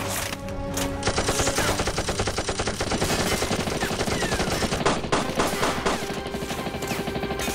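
Rapid, continuous machine-gun fire: dense shots with no real break.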